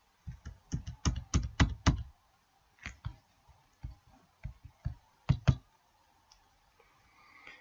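Keys being tapped on a computer keyboard: a quick run of about ten taps in the first two seconds, then a few scattered taps until about five and a half seconds in.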